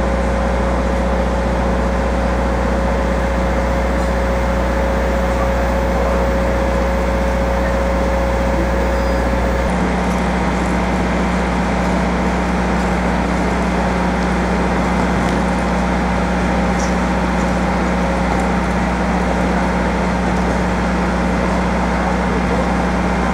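Steady city background noise of traffic and machinery hum, with a steady whine that stops about ten seconds in.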